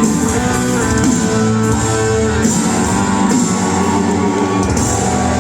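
Live rock band playing an instrumental passage, led by strummed guitar over a steady bass, heard through the arena's sound system.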